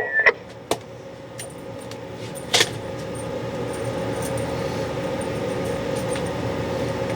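A CB microphone being unplugged and another plugged into the radio: scattered clicks and small rattles of the connector and cord, the sharpest click about two and a half seconds in. Under them a steady hum slowly grows louder.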